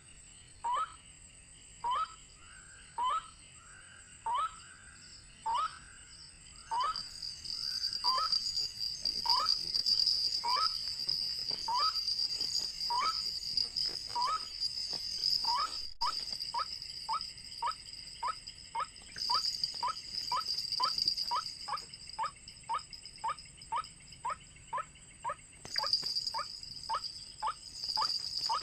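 White-breasted waterhen's repeated call: a short rising note given about once a second, quickening to two or three a second about halfway through. A steady high buzz comes in after about seven seconds and drops out briefly twice.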